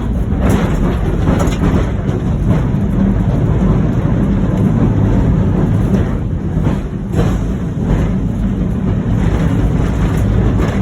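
Heritage tram running along its track: a steady low rumble of wheels and running gear, with a few clunks and rattles.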